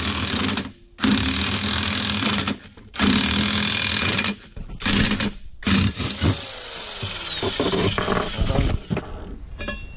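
Cordless impact wrench hammering in repeated bursts of a second or so as it runs a lug nut down to pull a wheel stud into an axle flange. About six seconds in it is let off, and its motor winds down with a falling whine, followed by a few clicks of handling.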